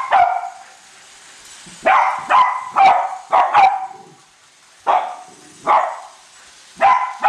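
Cavalier King Charles spaniels barking: about ten sharp barks in quick bursts, a run of five in a row about two seconds in, then single barks spaced a second or so apart.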